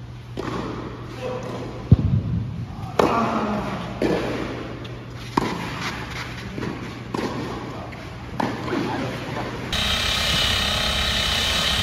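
Tennis balls struck by rackets and bouncing on an indoor court, a series of sharp hits ringing in the hall, the loudest about two seconds in. About ten seconds in, the sound changes to a steadier outdoor background noise.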